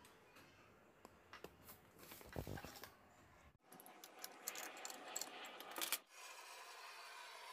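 Faint clicks, taps and rubbing from hands handling thin enamelled copper wire and the metal roller guide of a coil winding machine, with a cluster of light metallic clicks in the middle. A faint steady hiss follows near the end.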